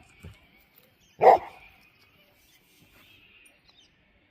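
A dog barks once, sharply, about a second in.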